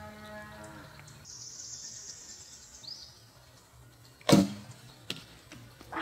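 A Bear Kodiak Magnum recurve bow shot about four seconds in: one sharp, loud snap of the string releasing the arrow, followed by a smaller click about a second later. Near the start, a drawn-out low call.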